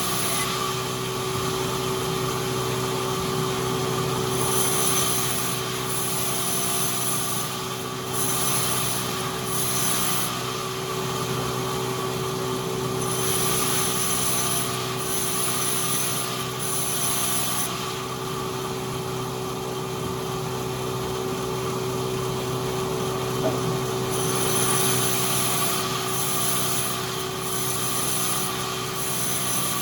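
Sawmill machinery running steadily, a constant motor hum with stretches of high-pitched hissing that come and go in groups of a second or two each.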